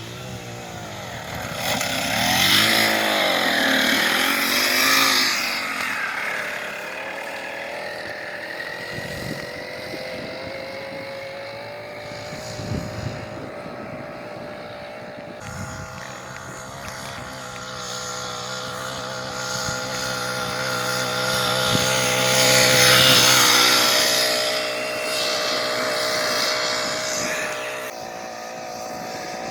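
Small gasoline engine revving up and down as a go-kart or scooter laps a track. It is loudest as it passes close, about two to five seconds in and again about three-quarters of the way through.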